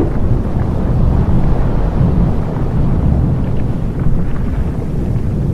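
Deep, steady rumbling roar of a volcanic eruption, with a few faint crackles above it.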